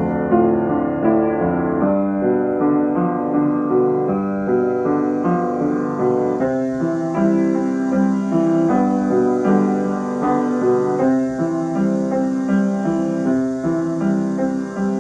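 Keyboard playing a melody over chords, with notes changing steadily throughout.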